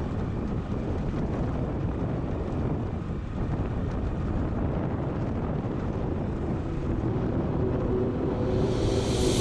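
Wind buffeting the microphone over rumbling road and vehicle noise while travelling along the road, with a hiss swelling near the end.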